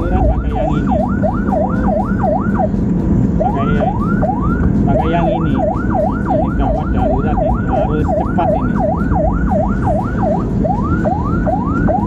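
Ambulance electronic siren on its fast yelp tone, a quick rising-and-falling wail at about three cycles a second that stops briefly about three seconds in and again near ten seconds. Heard from inside the ambulance, over its engine and road rumble.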